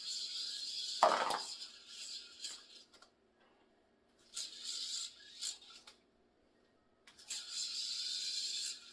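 Hyper Cluster yo-yo thrown three times, each throw giving a steady high hiss of the spinning yo-yo and string lasting one and a half to three seconds, with a short thump about a second in.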